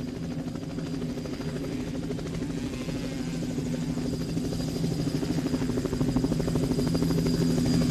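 Motocross bike engines running hard as several bikes come down a dirt track one after another, their engine notes overlapping. The sound grows steadily louder toward the end as the next bike draws near.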